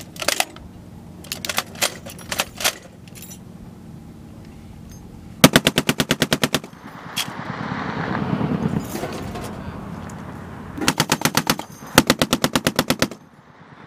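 M2 Browning .50-caliber heavy machine gun firing three rapid bursts at about ten rounds a second. A few fainter, scattered single shots come first, in the opening three seconds.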